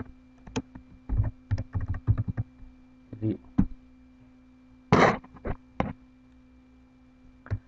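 Typing on a computer keyboard: a quick run of keystrokes, then a few separate clicks, with one louder one about five seconds in.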